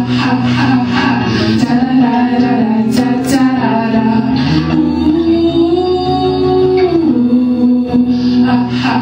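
Live music: a slow melody of long held notes, one sliding up in pitch halfway through and back down near the end.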